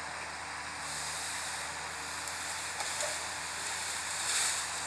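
Mechanized eucalyptus harvesting machines working in the distance: a steady low engine hum under a broad hiss, with a few faint clicks about three seconds in and a brief swell of hiss near the end.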